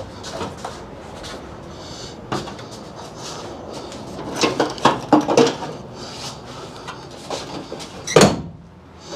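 Jeep Wrangler TJ hood being lowered and shut: a run of clanks and knocks as the hood is handled, then one loud thud about eight seconds in as it comes down and is secured.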